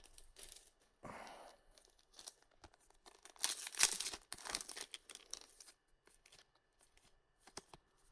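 Foil trading-card booster pack being torn open and crinkled, with light rustles and the loudest tearing about halfway through.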